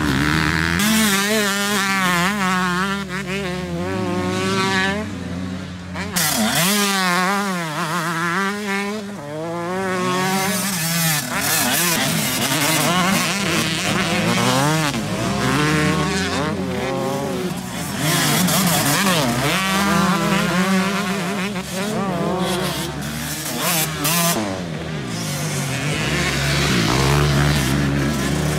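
Several motocross bike engines revving hard on a dirt track, their pitch rising and falling over and over as the riders open the throttle and shift, with the sounds of more than one bike overlapping.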